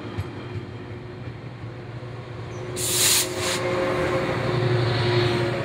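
Train at the station: a steady engine hum with held tones, a short loud hiss about three seconds in, and the low hum swelling near the end.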